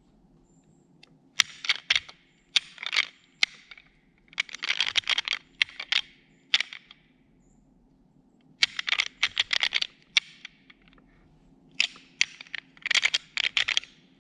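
Deer rattling antlers clashed and ground together in short bouts, a quick series of sharp clacks and ticks with pauses between, imitating two bucks sparring to call in a buck.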